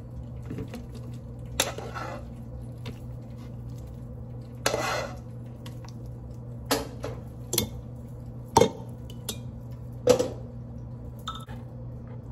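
A serving spoon knocking and scraping against a saucepan as food is spooned and poured out onto a plate: several sharp clanks, with one longer scrape about five seconds in, over a steady low hum.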